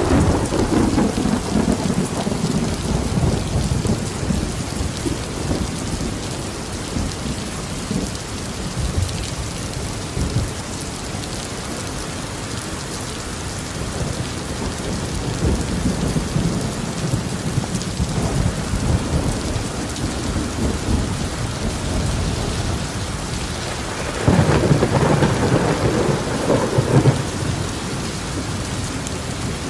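Steady rain with rolling thunder. A rumble at the start dies away over several seconds, another rolls in about fifteen seconds in, and a louder clap of thunder comes about twenty-four seconds in and lasts a few seconds.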